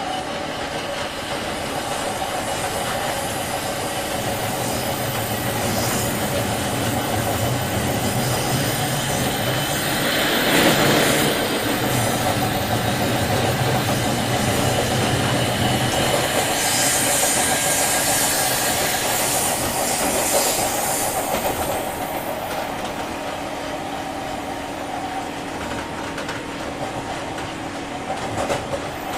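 Running sound inside a JR 201 series electric motor car: the steady drone of the motors and gear under the floor, with the wheels clattering over rail joints. A brief loud rushing swell comes about ten seconds in.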